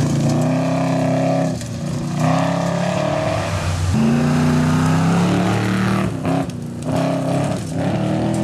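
Truck engine running under hard acceleration, its revs climbing and then dropping back several times, like a run up through the gears.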